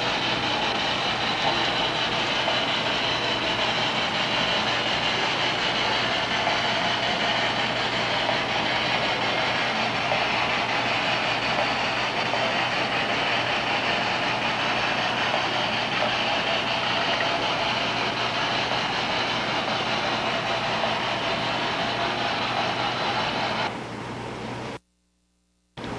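O scale model trains running on the layout: a steady rolling rumble and whir of wheels on rail. It drops in level near the end, then breaks off into a second of silence.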